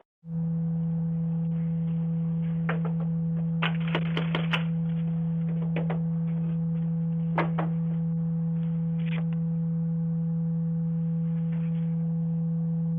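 A loud, steady electronic tone on one low, unchanging pitch, switched on just after the start. A few short clicks and knocks sound over it.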